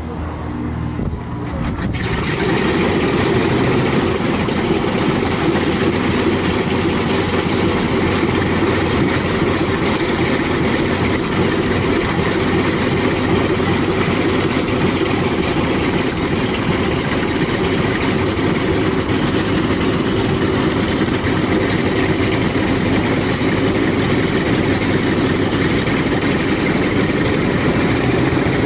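Vought F4U Corsair's Pratt & Whitney R-2800 eighteen-cylinder radial engine starting: it turns over for about two seconds, then catches and settles into a loud, steady run.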